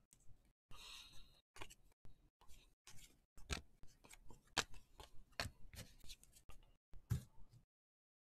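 Trading cards being handled and flipped through one by one: a faint, irregular run of light clicks and taps, a few a second, with a short rustle about a second in.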